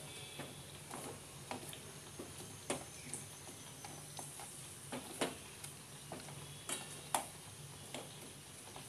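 Spatula knocking and scraping against a steel kadai while fried samosas are turned in sugar syrup: about ten separate light clicks and taps at uneven intervals, over a faint steady low hum.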